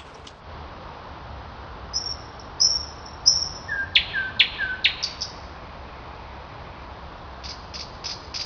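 Small birds chirping over a steady hiss: a few short high whistles, then three sharp calls that sweep steeply down in pitch about four seconds in, and a quick run of chirps near the end.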